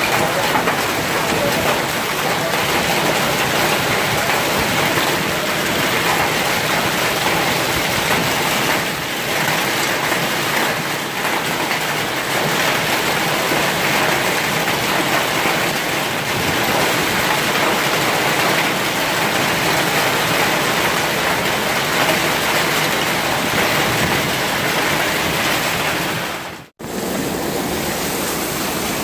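Heavy rain mixed with hail pelting down on the pavement and vehicles in a severe storm, a loud, dense, steady hiss. It cuts out for an instant near the end, then carries on.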